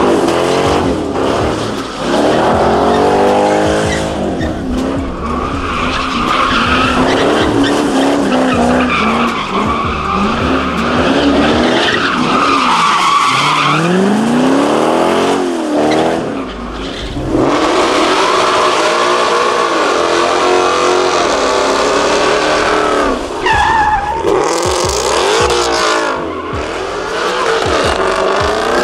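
Chevrolet Corvette V8 doing a smoky burnout: the engine revs up and down again and again while the spinning rear tyres squeal and scrub on the pavement.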